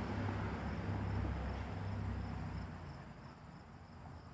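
Insects chirping in a steady pulsing rhythm, with the low rumble of a passing vehicle fading away over the first few seconds.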